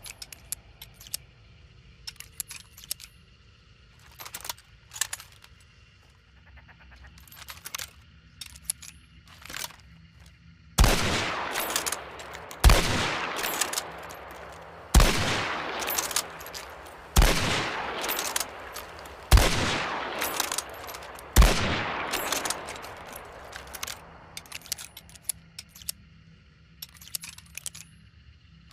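Krag-Jørgensen bolt-action rifle firing six shots about two seconds apart, each ringing out in a long echo. Scattered sharp metallic clicks come before and after the shots.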